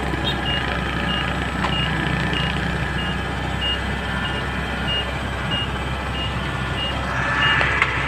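Kubota DC-70 Pro crawler combine harvester reversing, its diesel engine running steadily under a repeating high reversing-alarm beep, about one and a half beeps a second. A louder rasping noise swells briefly near the end.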